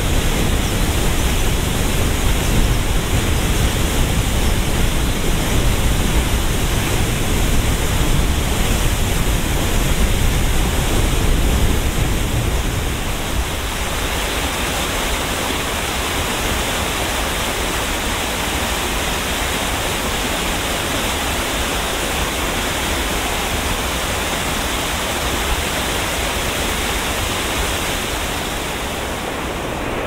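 Steady rushing of falling water: first a tall waterfall plunging down a rock cleft, full of deep rumble. About halfway through it changes to a small cascade splashing over mossy boulders, a brighter, slightly quieter hiss with little low rumble.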